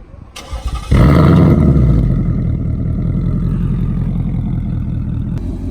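Roush-supercharged 2020 Ford Mustang GT 5.0 V8 starting up through an X-pipe, resonator-delete exhaust: brief cranking, then it catches about a second in with a loud rev flare that settles into a steady idle.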